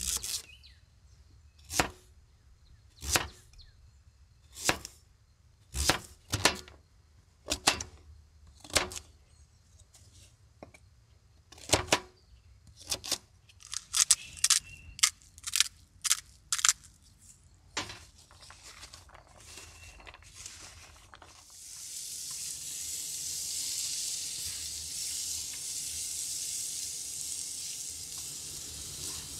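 Knife chopping a sweet potato on a cutting board: sharp single chops a second or so apart, coming faster for a few seconds. About three-quarters of the way in, diced sweet potato starts sizzling steadily on a hot electric griddle.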